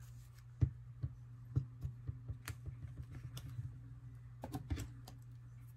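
Small irregular taps and clicks of hands working at a craft table, setting down a glue bottle and pressing paper pieces onto a cardboard mat. The sharpest tap comes about half a second in and a quick cluster comes near the end, over a steady low hum.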